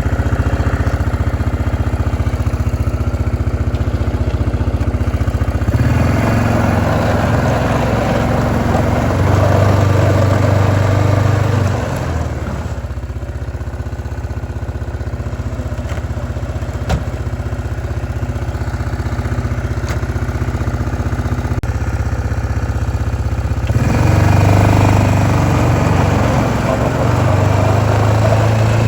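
A motor running steadily, growing louder and fuller for two stretches of about six seconds each.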